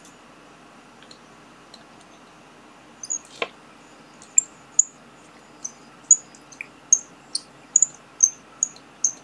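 Piezo buzzer driven by an Arduino Uno, giving a run of short, sharp, high-pitched chirps at irregular intervals, a few a second. A single click comes about three seconds in, just before the chirps begin.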